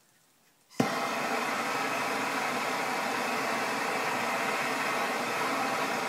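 Handheld gas torch lit with a click about a second in, then burning with a steady hiss, heating a copper battery-cable lug to melt solder.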